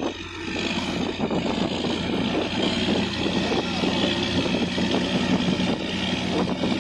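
Boat engine running steadily under way, a dense mechanical rumble with a steady hum that grows clearer a few seconds in.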